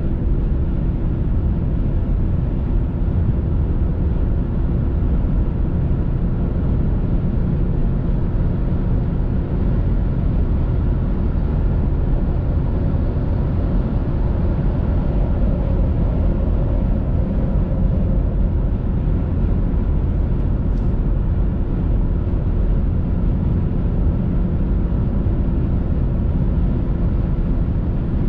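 Steady road and engine noise inside a car's cabin driving at highway speed, with a faint steady hum underneath.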